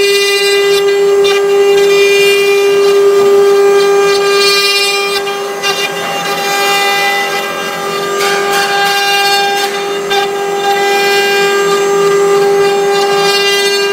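Multi-head CNC wood router's 1.5 kW water-cooled spindles whining at one steady high pitch while the bits carve wood. A higher rasp of cutting swells and fades every few seconds.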